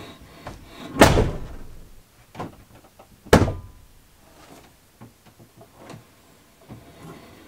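The two rear doors of a VW Crafter van being shut one after the other, heard from inside the cargo area: two heavy slams about two seconds apart, with a few faint knocks in between and after.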